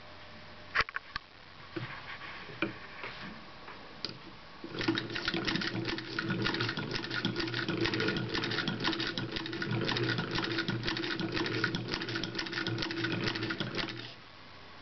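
Baer & Rempel Phoenix D sewing machine running and stitching, a rapid, even mechanical clatter that starts about five seconds in and stops shortly before the end. A few separate clicks come before it starts.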